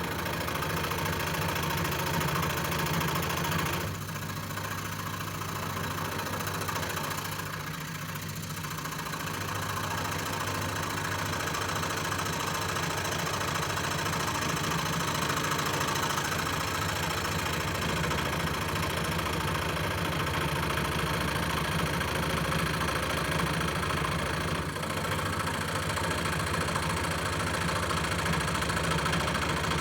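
Scroll saw running steadily, its motor driving the blade up and down with a low hum and a buzzing rattle. The level dips slightly about four seconds in and again around eight seconds.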